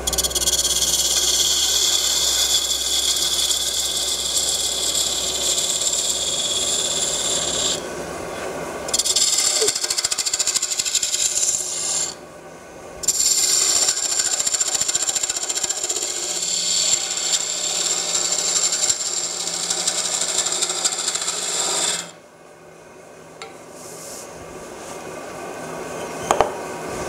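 A lathe tool cutting a spinning wooden lid: a steady hiss and scrape of shavings coming off in three long spells, broken by short pauses about 8 and 12 seconds in, and stopping about 22 seconds in. A sharp knock near the end.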